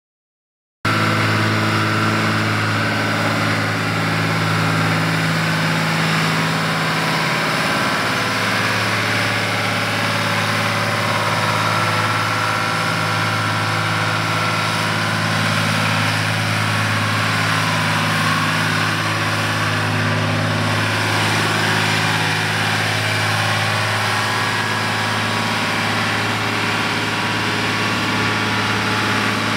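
John Deere 2955 tractor's six-cylinder diesel engine running steadily as the tractor drives slowly. The sound cuts in suddenly about a second in, and the engine note shifts slightly about seven seconds in.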